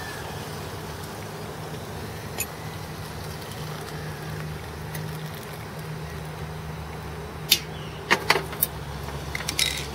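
Hot water poured from a stainless steel kettle into a ceramic mug over a steady low hum, then sharp metal clinks and knocks near the end as the kettle is set back down on the camping gas stove.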